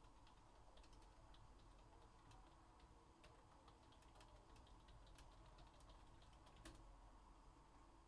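Faint, irregular clicking of typing on a computer keyboard, with one sharper click about two-thirds of the way through.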